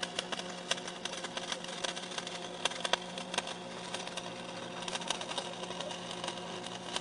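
MIG welding arc on steel, crackling and sputtering steadily as a bead is laid, with a low steady hum underneath.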